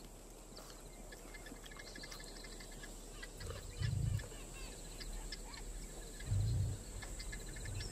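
Natural bush ambience of many small birds chirping and trilling, over a steady high hum. There are two short deep swells of a music score, about three and a half and six and a half seconds in.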